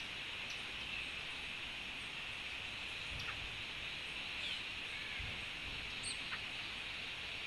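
Outdoor forest ambience: a steady high-pitched drone, with scattered short bird chirps over it.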